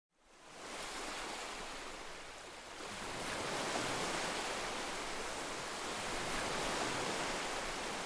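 Ocean waves washing over rocks: a steady rushing surf that fades in at the start and swells a little about three seconds in.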